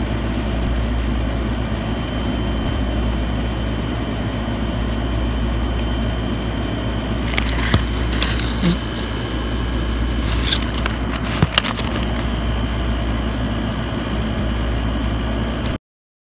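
Steady low hum and rushing noise, like a running machine, with a thin high whine over it; a few faint clicks come about halfway through, and the sound cuts off abruptly just before the end.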